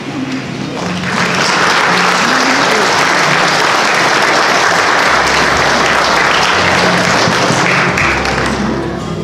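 Audience applauding, starting about a second in and fading near the end, over quiet background music.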